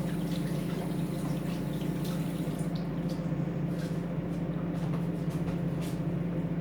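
Steady low hum of a microwave oven running, with water from a kitchen tap running and dripping at the sink that fades out about three seconds in, leaving a few light clicks.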